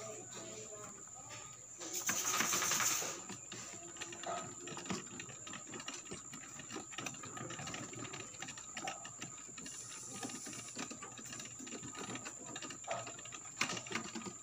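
A rabbit chewing its food with rapid, steady crunching. A brief, louder rustle-like noise comes about two seconds in.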